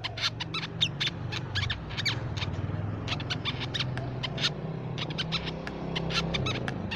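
Crimson sunbird calling: a rapid, irregular series of short, sharp, high-pitched chips, several a second, over a steady low hum.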